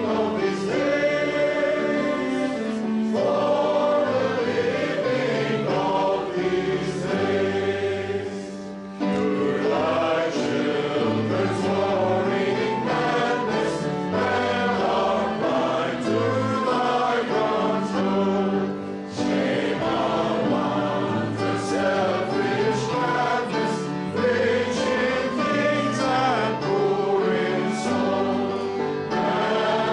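A choir singing a sacred piece, with short breaks between phrases about a third and two-thirds of the way through.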